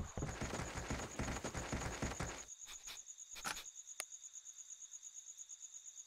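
Quick running footsteps for the first two and a half seconds, over crickets chirping in a steady, fast high-pitched pulse that continues throughout. A few single sharp knocks come in the middle.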